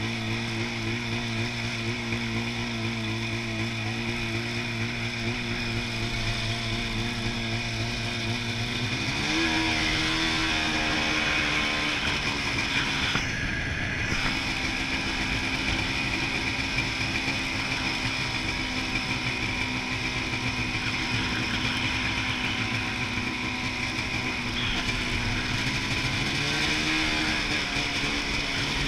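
Snowmobile engine running under way, its pitch climbing sharply about a third of the way in as the throttle opens, then holding steady. The sound is briefly muffled about halfway through, and the engine revs up again near the end.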